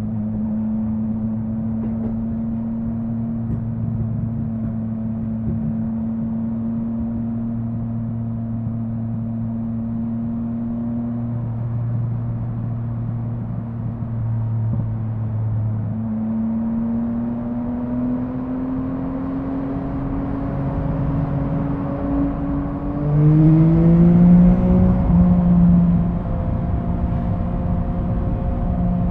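Yamaha MT-09's inline-three engine running at steady revs, then climbing steadily in pitch from about halfway. Near the end the pitch drops suddenly and the engine gets louder for a few seconds, a gear change followed by harder acceleration.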